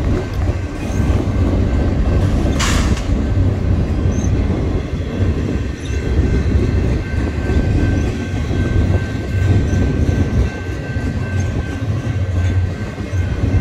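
Double-stack intermodal freight train rolling past close by: a steady, loud rumble of wheels on rail with clickety-clack over the rail joints. There is a brief hiss about two and a half seconds in, and a faint steady high whine from about halfway.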